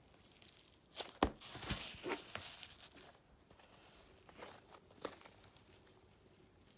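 Play-Doh foam slime being squeezed and stretched by hand, giving off crackly, crinkling squishes. A cluster of them about a second in, then a few fainter ones later.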